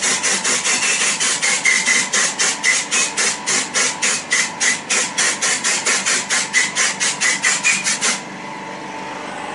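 Swarf being cleared by hand from a freshly machined aluminium part inside a CNC mill's enclosure: quick, even noisy strokes about five a second that stop abruptly about eight seconds in. A thin steady whine from the machine continues underneath.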